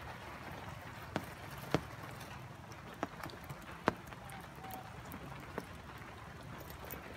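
Light rain: a steady hiss with single drops tapping sharply close by now and then.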